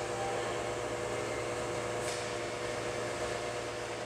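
Steady mechanical hum, a fan-like noise with a few constant tones in it.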